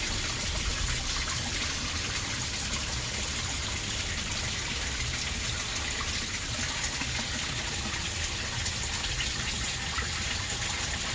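Pond waterfall splashing steadily, a continuous rush of falling water.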